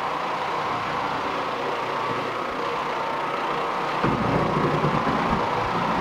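Oreck Orbiter orbital floor machine running steadily, its nylon carpet brush working over dry carpet. A low rumble joins about four seconds in.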